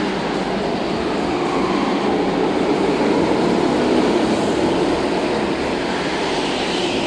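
Several go-karts running around an indoor track, their engines making a steady, dense drone that echoes through the large hall. It grows slightly louder as one kart passes close, about four seconds in.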